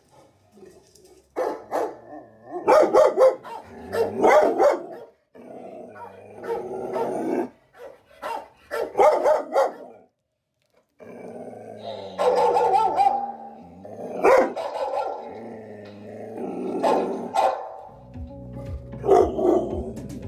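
A dog barking in loud bursts of several barks at a time, with music from a television underneath.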